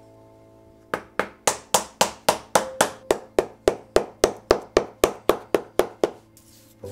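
Shoemaker's hammer tapping leather in a steady run of about twenty blows, roughly four a second, starting about a second in and stopping about a second before the end.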